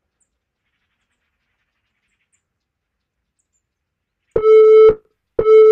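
Silence for about four seconds, then an interval timer's countdown beeps: two steady mid-pitched beeps about a second apart, each about half a second long, counting down the last seconds of a work interval.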